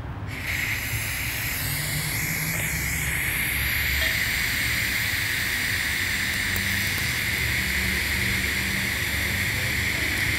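TIG welding arc on carbon steel pipe at about 130 amps, hissing steadily as the hot pass is run; it strikes about a third of a second in. A low hum runs underneath.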